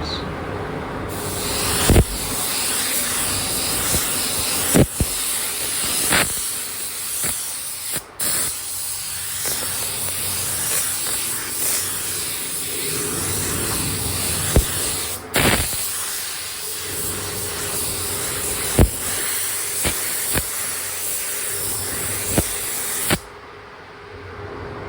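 Clear coat being sprayed onto a motorcycle fairing: a steady spraying hiss with a few short clicks, stopping sharply near the end.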